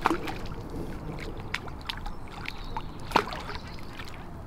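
Hooked carp splashing and swirling at the water's surface as it is played in to the landing net: a run of short sharp splashes, the loudest about three seconds in.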